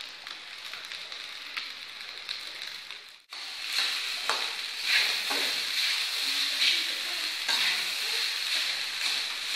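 Fried rice sizzling in a wok while a spatula stirs and scrapes through it. The sound cuts out abruptly about three seconds in, then comes back louder, with repeated scrapes of the spatula against the pan.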